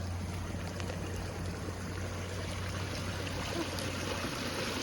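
Rainwater running steadily through a freshly cleared drainage ditch, with a steady low hum underneath that stops about four seconds in.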